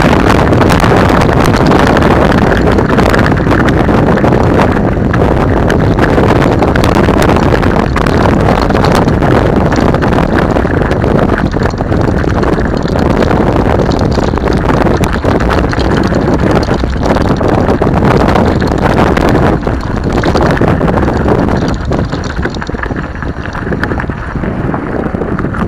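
Wind buffeting the microphone of an action camera on a mountain bike riding down a gravel dirt track, mixed with the rattle and jolts of the bike over loose stones. It gets quieter near the end.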